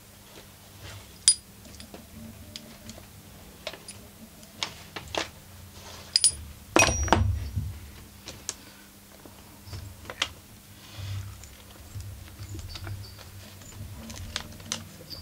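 Sporadic small metallic clicks and clinks of tools and parts being handled at the flywheel of a disassembled chainsaw, with a louder clatter lasting about a second near the middle.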